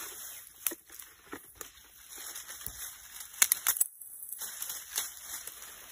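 Dry twigs and stalks rustling, crackling and snapping as they are gathered and bundled by hand, with a quick run of sharp cracks about three and a half seconds in.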